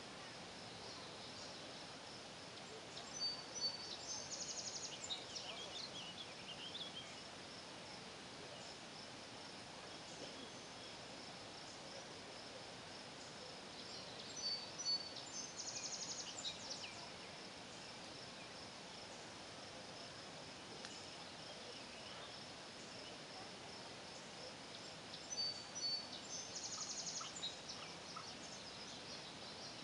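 Steady high chorus of crickets at dusk, with a bird singing the same short phrase three times, about eleven seconds apart. Each phrase is a few quick notes ending in a buzzy trill.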